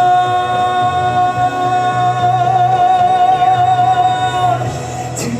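Male trot singer holding one long sung note with a slight vibrato over live band backing music; the note ends about four and a half seconds in while the accompaniment carries on.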